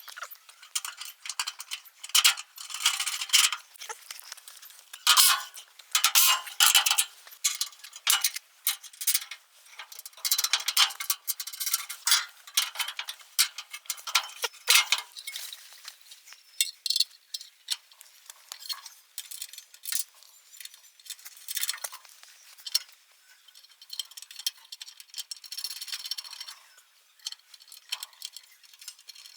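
Irregular light metal clinks and rattles, as of spanners and metal machine parts being handled and fitted together, coming in uneven bunches.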